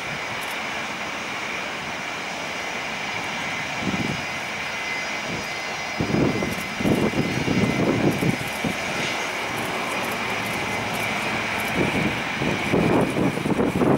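Boeing 737-800's CFM56-7B turbofan engines running at low thrust as the airliner taxis, a steady high whine over a jet hiss. From about six seconds in, a louder, irregular low rumbling comes and goes.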